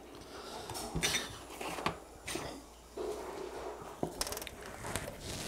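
Faint, scattered handling sounds of a burger being held and lifted to the mouth: soft rustles and light taps, with a sharp click about a second in and another about four seconds in.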